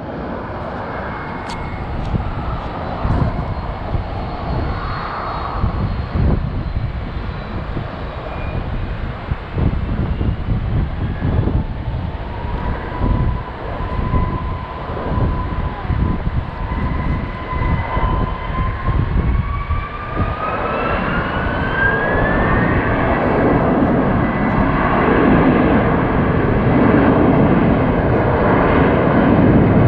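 Jet airliner engines running with a steady roar, and a whine that climbs in pitch over about ten seconds, after which the roar grows louder.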